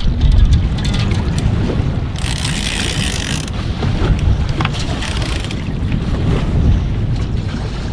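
Wind buffeting the microphone on a drifting offshore fishing boat, a heavy low rumble, with water noise against the boat. About two seconds in, a brighter hiss of water or spray lasts around a second.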